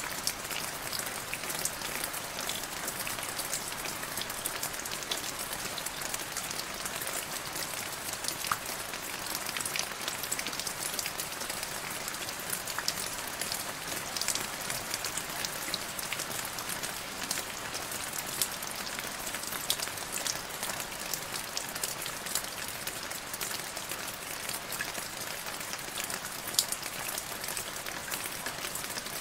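Steady rain falling into a puddle: a constant hiss with many separate sharp drop ticks scattered through it.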